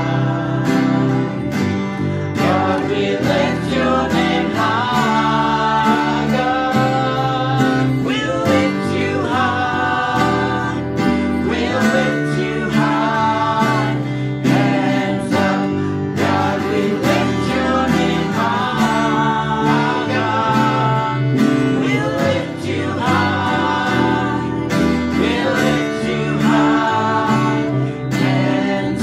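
Worship song playing: a singer's voice over guitar accompaniment.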